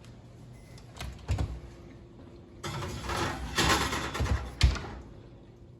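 Oven door and metal rack clattering as a baking pan is handled in the oven: a few sharp knocks about a second in, then a longer rattling stretch ending in two heavy thuds near the end.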